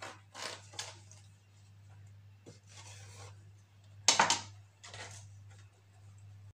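Knife sawing through the baked pastry crust of a liver roll on a metal tray: a few rasping strokes, with the loudest scrape about four seconds in. A low steady hum runs underneath.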